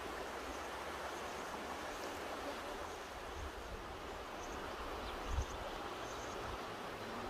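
Mountain river rushing steadily, with a few brief low buffets of wind on the microphone about three and five seconds in.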